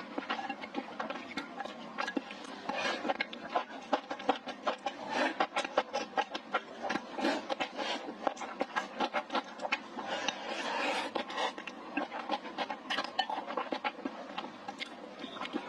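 A person eating close to the microphone: steady, irregular chewing and mouth smacks, many quick wet clicks a second.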